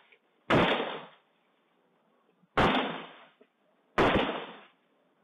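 Gunshots picked up by a doorbell camera's microphone: three loud, sharp reports, irregularly spaced about two seconds and then a second and a half apart, each followed by a short echoing tail.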